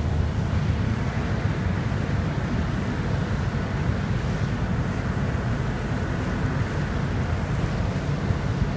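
Steady low rumble of wind buffeting the microphone, mixed with the wash of churning water around a ship's bow.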